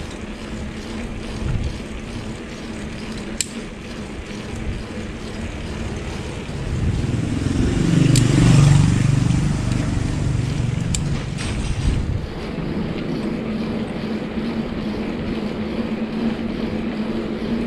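A small motorcycle's engine approaches and passes, swelling to its loudest about eight seconds in and fading over the next few seconds. Under it runs a steady low rumble from the moving bicycle ride.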